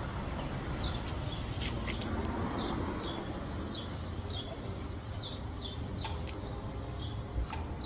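A small bird chirping over and over, short high chirps about one or two a second, over a steady low outdoor rumble, with a few sharp clicks.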